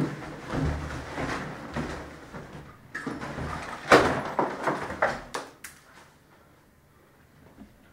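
Someone rummaging among things on a cluttered desk: rustling and handling noise with a string of knocks and clatters, the loudest knock about four seconds in, then it goes quiet.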